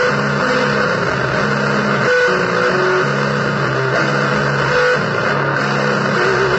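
Noisy electric guitar music in a blues vein: a dense, steady wash of noise with held low notes and shorter held higher notes that change every half second or so.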